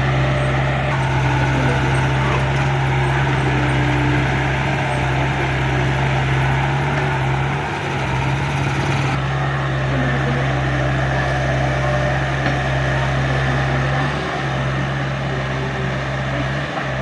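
Excavator's diesel engine running steadily, a constant low drone with no rises or falls in pitch.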